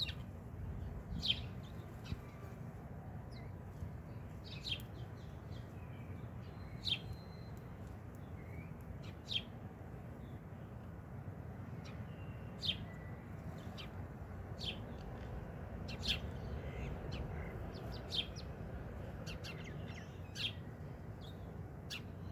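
Sparrow chirping: short, high single chirps repeated every couple of seconds, over a faint, steady low background rumble.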